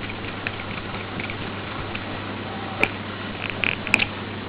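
Small metal clicks and light scraping as the padlock's retaining screw is done up with a screwdriver, over a steady low hum; two sharper clicks come in the last second and a half.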